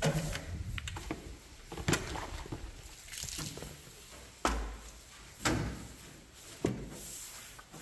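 Long-handled wash brush scrubbing soapy sheet metal on a tractor's hood and cab, with a handful of loud, irregular swishes and knocks a second or so apart as the brush and pole strike the panels.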